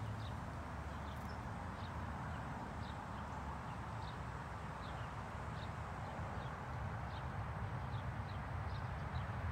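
A small animal gives short high chirps over and over, roughly two a second, over a steady low outdoor rumble.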